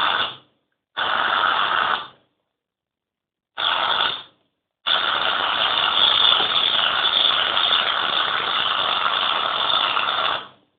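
Aerosol can of shaving foam spraying with a hiss in bursts: two short squirts, a shorter one, then a long spray of about six seconds that cuts off, as the can is emptied.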